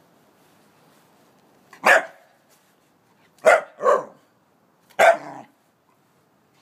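Scottish terrier puppy barking four times: one bark, then a quick pair, then one more.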